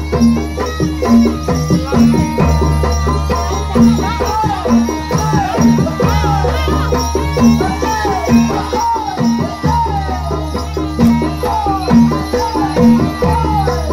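Traditional Javanese kuda lumping accompaniment: gamelan-style percussion keeping a steady beat of short pitched notes about twice a second. A deep hum swells in and out every couple of seconds, with repeated falling notes above it.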